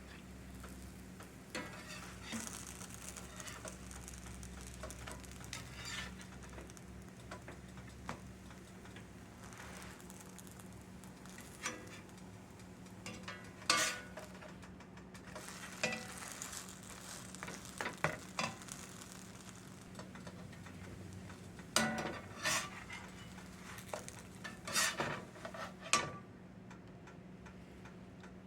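Potato pancakes frying in a hot pan with a steady faint sizzle, while a utensil now and then scrapes and knocks against the pan in short clusters through the middle and near the end.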